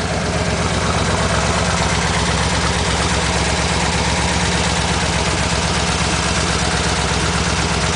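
Chevrolet LT1 350 small-block V8 idling steadily in a 1968 Corvette.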